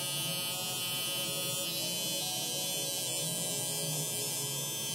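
Electric hair trimmer with a metal T-blade buzzing steadily as it trims along the mustache line.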